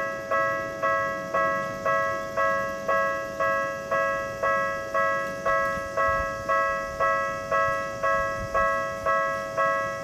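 Japanese railway level-crossing warning bell ringing steadily at about two strikes a second, each strike fading before the next. It is the alarm that sounds while the barriers are down for an approaching train.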